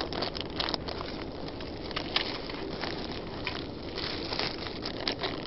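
Dry fallen leaves crunching and rustling underfoot in irregular crackles, over a steady low background noise.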